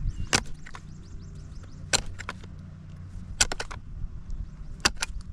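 Plastic retaining clips on a steering wheel's bottom trim snapping into place: a few sharp clicks spread unevenly, with a quick run of three about three and a half seconds in.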